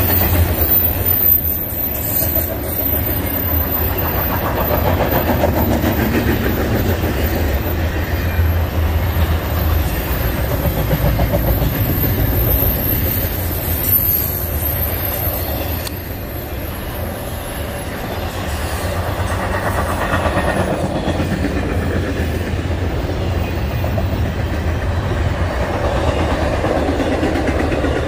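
Double-stack intermodal freight train's container-laden well cars rolling steadily past: a continuous rumble of steel wheels on the rails.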